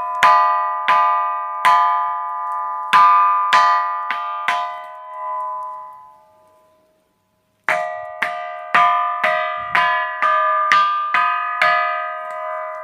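A ringing rock, the Pedra do Sino, struck again and again. Each blow rings out with a clear bell-like tone that dies away slowly. After a short break of silence, the strikes come faster, about two a second.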